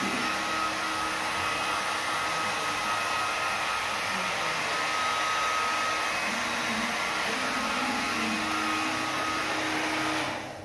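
Handheld hair dryer running steadily on wet acrylic paint on a canvas, an even rush of air with a faint whine, switched off abruptly near the end.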